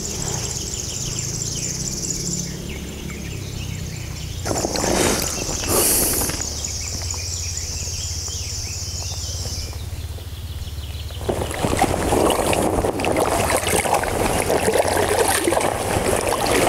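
River water trickling and splashing around a drifting float tube, turning into a louder, fuller rush of water about eleven seconds in. A high, pulsing buzz comes and goes over the first ten seconds.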